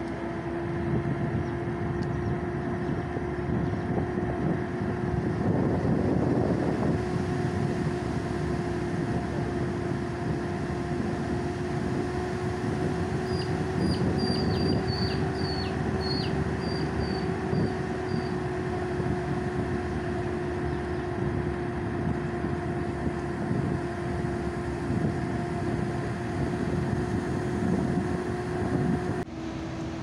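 Vehicle engine running steadily at low speed with a constant drone and road rumble, heard from the vehicle itself as it paces runners. A quick run of about ten short, high chirps comes about halfway through.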